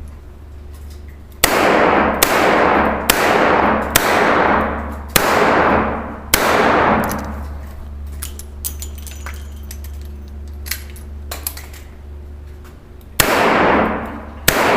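Smith & Wesson Model 66 revolver fired six times in quick succession, each shot ringing out with an echoing tail. Then comes a pause of about six seconds with small metallic clicks as the cylinder is reloaded with a speed loader. Two more shots follow near the end.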